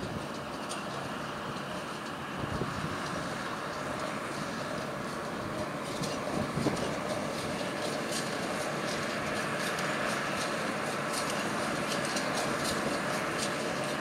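New Holland T5060 tractor's diesel engine running steadily as it pulls a working Massey Ferguson 124 small square baler, growing slightly louder as it draws closer. Over the engine the baler's mechanism clatters, with a run of short sharp clicks and rattles in the second half.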